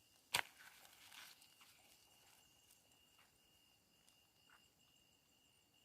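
A steady high insect trill from the night, with one sharp knock about a third of a second in, followed by a second or so of rustling and scattered clicks.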